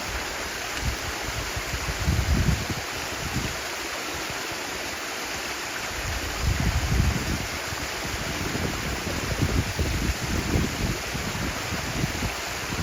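Stream water flowing in a steady rush, with irregular low rumbling surges about two seconds in, again around the middle, and repeatedly near the end.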